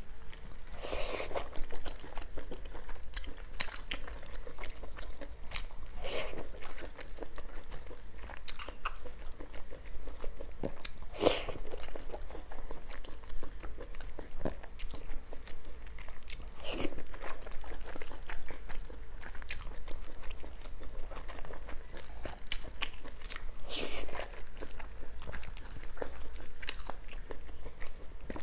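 A person eating close to the microphone: biting pieces of saucy skewered food and chewing, with wet smacking and crunching. A few louder bites come roughly every five or six seconds.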